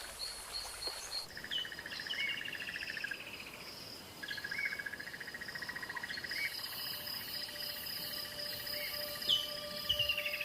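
Natural bush ambience: birds calling in long, repeated pulsed trills over steady high-pitched insect trilling. The background changes about a second in, from rapid high chirping to the trilling calls.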